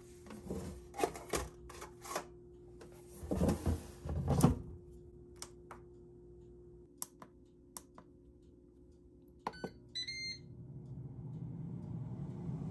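Ninja DualZone air fryer being loaded and started: a foil pan clatters into the basket and the basket is slid shut with a few knocks, followed by button clicks, two electronic beeps about ten seconds in, and the fan starting up and running, growing gradually louder near the end.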